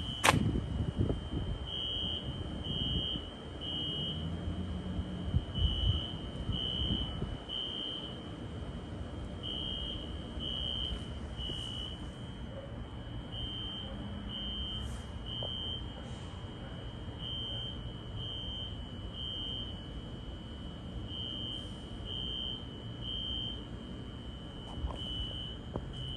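Fire alarm horns, Wheelock ZNS horn/strobes, sounding the temporal code 3 evacuation pattern: three short high beeps, a pause, then again, repeating steadily. A fainter continuous tone at the same pitch runs underneath, over a low background rumble, with a sharp knock at the very start.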